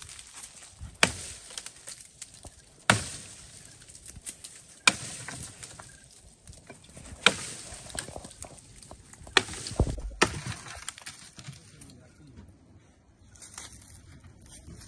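Axe blows chopping into a tree trunk: six sharp strikes spaced about two seconds apart, stopping about ten seconds in.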